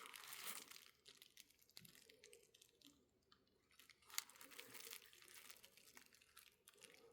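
Faint handling noises from working on a small model locomotive by hand: light rustling in short spells with a few small clicks, one sharper click about four seconds in.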